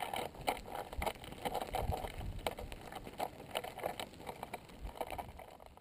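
Pahoehoe lava crust crackling and popping with irregular sharp clicks as the molten toe pushes and splits its cooling skin, over a low rumble. The sound fades out at the very end.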